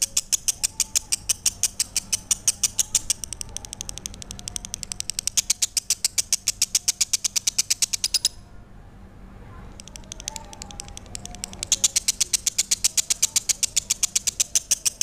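Lovebird singing a long, rapid chattering song: a fast, even string of sharp high chirps, about seven a second. It breaks off for about a second and a half just past the middle, then starts again.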